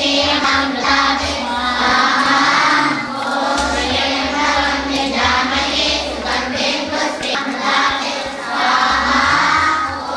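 Several voices singing a chant-like devotional melody together over a steady drone.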